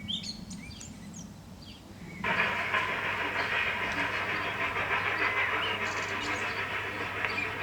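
Birds chirping faintly, then about two seconds in a 7¼ inch gauge miniature railway train running starts abruptly, with a steady hissing noise.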